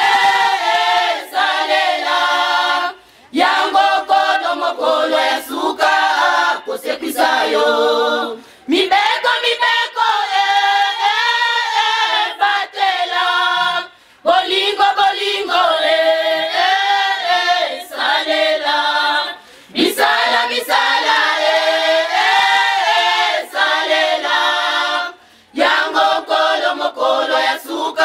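Church choir of mostly women and girls singing unaccompanied, in phrases broken by short pauses about every five to six seconds.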